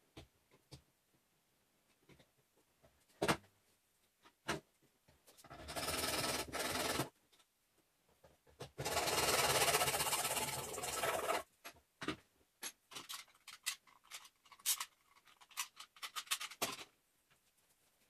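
Small hand hacksaw cutting through plastic: two spells of fast sawing, the first about a second and a half long and the second nearly three seconds, with scattered clicks and taps of the saw and plastic being handled around them.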